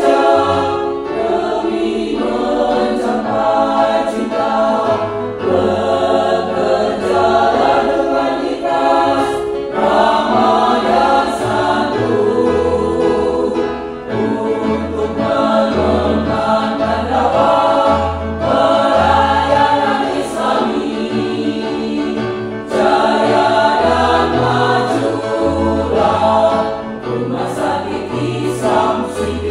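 Mixed choir of women and men singing a song together in rehearsal, accompanied by an electronic keyboard playing steady bass notes and chords.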